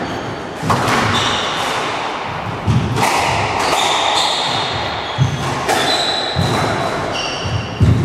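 A squash rally: the hard rubber ball is struck by rackets and smacks off the walls about six times, with short high squeaks from court shoes on the wooden floor between the hits.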